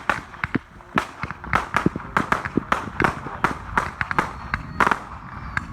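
Firecrackers going off in an irregular rapid run of sharp pops and bangs, several a second.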